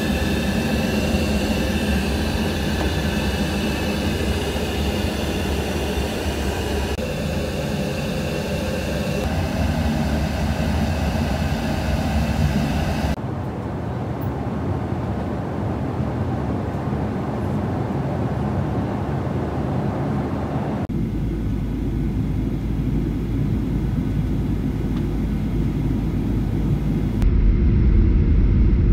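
Steady in-flight cabin noise of a Boeing 737-800: a low rumble of engines and airflow with a hiss over it. The sound changes abruptly several times and grows louder and deeper near the end.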